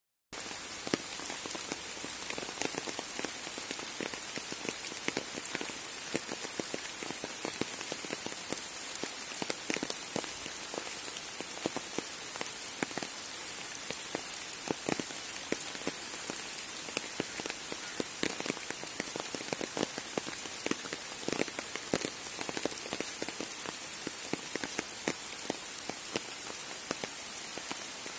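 Steady rain falling on trees, leaves and grass: an even hiss with many separate drop hits through it, a little heavier over the first several seconds.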